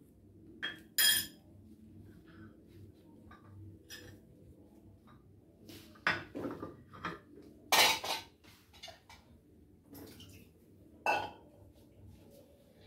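Metal spoon clinking against a ceramic teacup and saucer in scattered, separate knocks, the loudest about a second in, around eight seconds in and about eleven seconds in.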